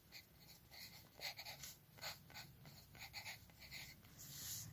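Pencil writing on paper: short, faint scratching strokes as a word is written out by hand on a printed book page.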